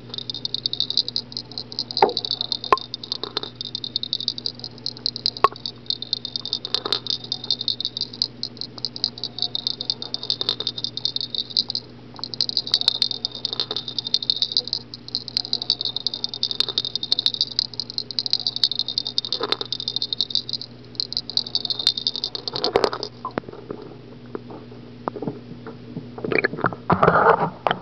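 Milagro Lures' Excited Baby Bass vibrating fishing lure buzzing with a fast, high-pitched rattle as it swims in the water. The rattle runs in long stretches with a few brief pauses and stops about three-quarters of the way through. Scattered knocks sound throughout, with a louder cluster near the end.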